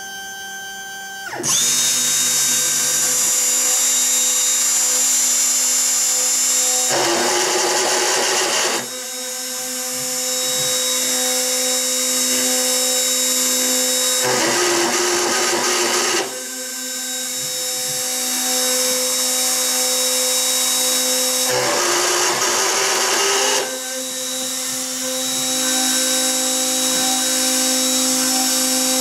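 X-Carve CNC router's spindle milling 3 mm aluminium plate with a 3 mm end mill: a loud, high-pitched screech with several steady tones. It starts about a second and a half in and turns to a rougher noise for a couple of seconds about every seven seconds. The bit is chattering badly in the groove.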